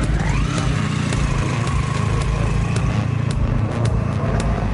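Motorcycle-and-sidecar outfit's engine revving up as it pulls away, its pitch climbing sharply in the first half second, then running steadily at speed with a slowly falling whine.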